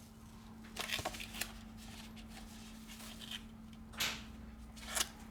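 Light scrapes and rustles of an iPhone X's parts being handled as the screen is separated: a few brief strokes about a second in and again around four and five seconds, over a faint steady hum.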